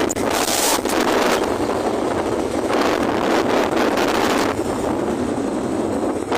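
Wind rushing over the microphone of a camera riding on a moving vehicle along a highway, with road noise underneath; it surges in gusts twice, in the first second and a half and again from about three to four and a half seconds in.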